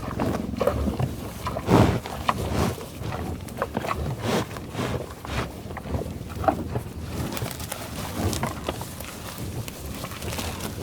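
Buffalo giving a series of short, low grunting calls, louder in the first half, over scattered small knocks and clicks.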